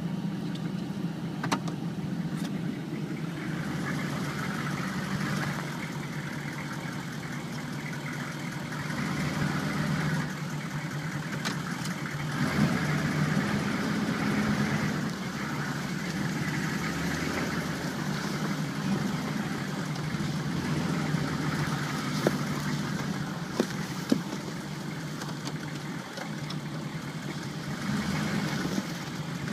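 Vehicle engine idling and running slowly, a steady low hum, with a few short clicks about two-thirds of the way through.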